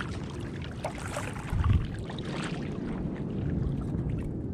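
Water splashing and lapping against a kayak hull on a lumpy sea, with a dull knock about a second and a half in.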